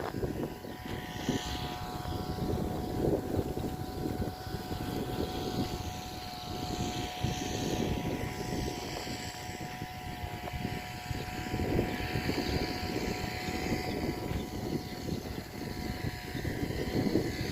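An engine running steadily: a rough low rumble with a constant whine of several steady tones over it.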